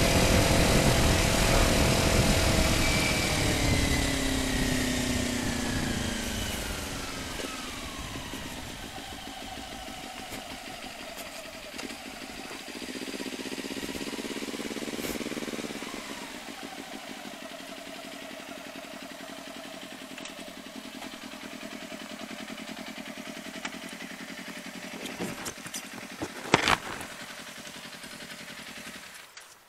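Kawasaki Ninja motorcycle with an Akrapovic slip-on exhaust slowing down, its engine note falling over the first several seconds, then settling to a steady idle with a brief rise in revs around the middle. A few clicks and one sharp knock come near the end, and the engine cuts off just before the end.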